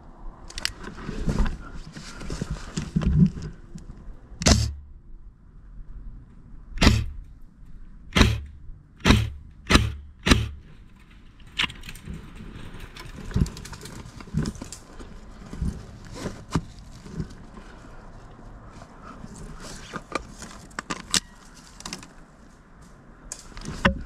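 Rustling movement and clattering gear, broken by a run of loud, sharp cracks, six of them within about six seconds near the middle, followed by scattered lighter clicks and knocks.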